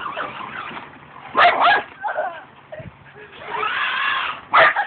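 Dog barking at a remote-control car: two quick sharp barks about a second and a half in, and another near the end.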